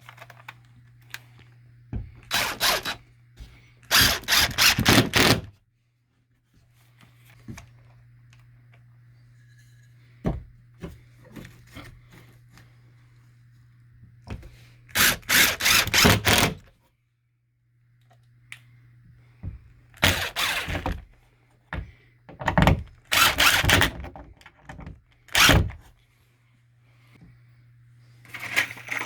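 Cordless drill driving drywall screws through a sheetrock patch into wood backing strips, in a series of short bursts of about a second each, with knocks and handling between them. A low steady hum runs underneath.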